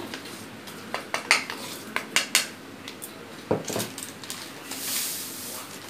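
A metal spoon and bowls clinking as maida flour is tipped and scraped from a plastic bowl into a glass bowl: a quick series of sharp clicks in the first two and a half seconds, then a duller knock about three and a half seconds in.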